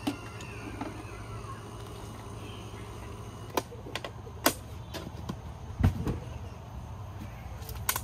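Several sharp clicks and knocks at irregular intervals over a steady low hum, the loudest a dull thump about six seconds in.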